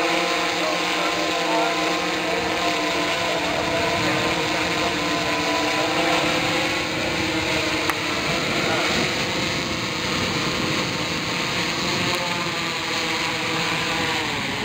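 Large octocopter's eight electric motors and propellers whirring in flight: a steady hum of several wavering tones over the rush of the propeller wash. In the second half the tones blur into a rougher rush as it comes down low to land.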